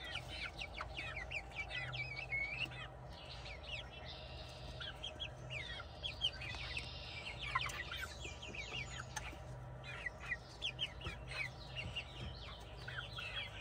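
Backyard hens clucking and chirping softly, a scatter of short calls throughout, over a faint steady low hum.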